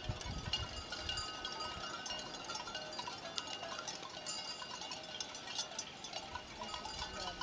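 Many cowbells on a grazing cattle herd clinking and ringing irregularly, with overlapping tones of different pitches.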